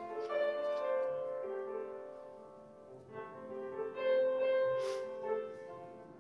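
Slow piano music in sustained chords with a melody on top, played for the offertory. There is one brief rustle about five seconds in.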